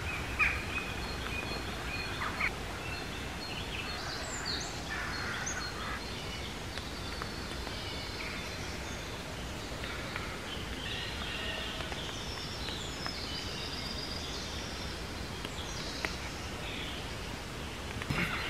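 Woodland ambience: several songbirds singing in short chirps and trills over a steady low background rumble.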